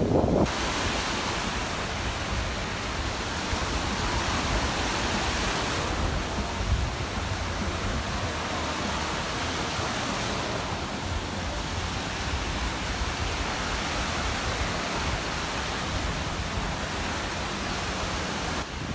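Gulf surf breaking and washing up the beach in a steady rush, with a low rumble of wind on the microphone.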